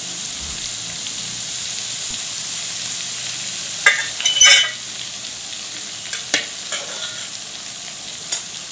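Warm oil poured over ground pickle masala of split mustard seed, salt and chilli powder in a large steel bowl, sizzling steadily as it froths up through the powder. A few sharp clinks of the ladle against the steel bowl come about four seconds in and a few more later.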